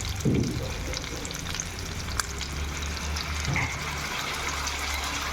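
Food frying in a pan, a steady sizzle with fine crackles throughout.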